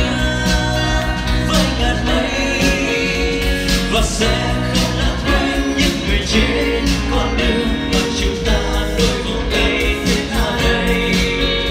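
Live group singing: several singers on microphones singing a song together over band accompaniment with electric guitar and a steady beat.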